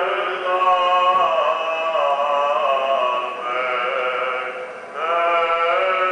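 Men's voices chanting a Greek Orthodox Easter hymn in long held notes that bend slowly in pitch. The chant comes in phrases, with two short breaks between them.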